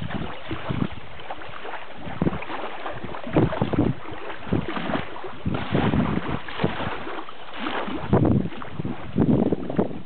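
Wind buffeting the microphone in uneven gusts over a steady rushing hiss.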